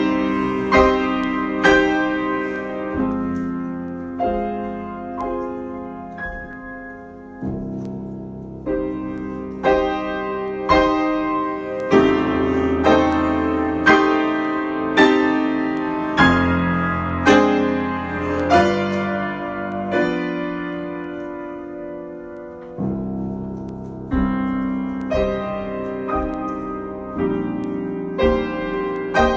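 Solo piano being improvised: chords and notes struck about once a second, each left to ring and die away, with a longer held chord a little past the middle.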